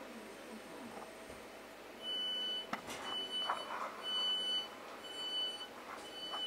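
Train passenger-door warning beeping: a steady high-pitched beep about once a second, five times. A sharp knock comes between the first and second beeps.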